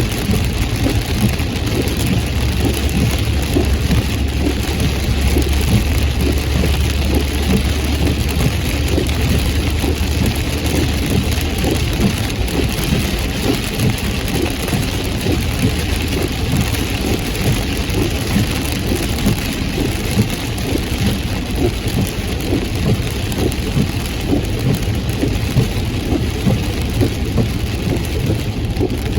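Heavy rain pattering steadily on a car while it is driven, over a constant low hum of engine and road noise.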